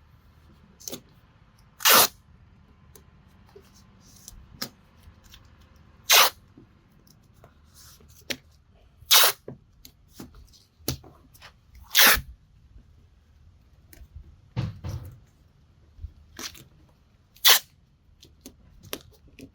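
Masking tape being pulled off the roll in short noisy rips, five big ones a few seconds apart, with smaller crackles and clicks of the tape being torn and pressed on between them, over a faint low hum.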